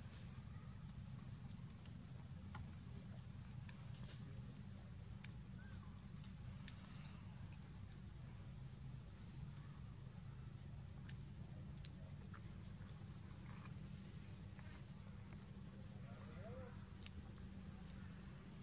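Insects trilling: one steady, thin, high tone with a low hum beneath. Scattered faint ticks of dry leaves being handled, with one sharper click about twelve seconds in.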